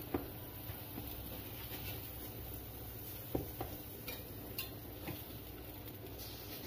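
Metal spatula tapping and scraping against a hot griddle as slices of toast are turned over, a few scattered light clicks over a faint steady background.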